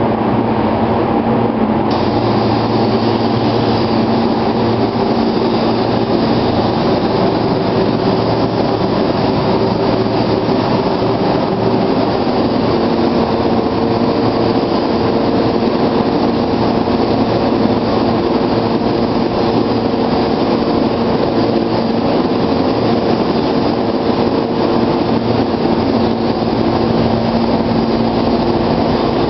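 Steady spray-booth air noise with a low hum, joined about two seconds in by the hiss of a gravity-feed paint spray gun laying down clear coat.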